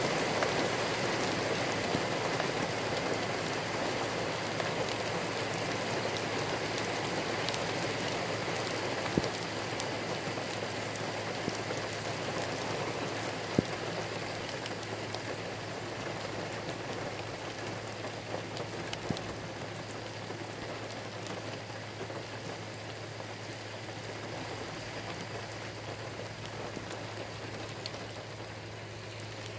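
Steady rain falling in a thunderstorm, slowly easing, with a few sharp taps of single drops close by and a low steady hum underneath.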